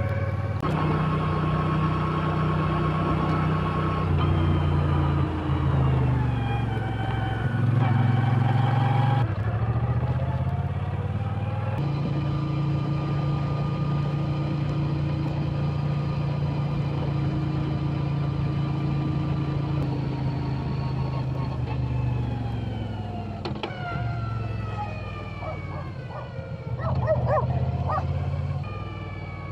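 Moto Guzzi V9 Bobber's air-cooled transverse V-twin on its stock exhaust, heard on board while riding. The engine note falls as the bike slows, picks up again, holds steady at a cruise, then drops away again, with a brief spell of clicks near the end.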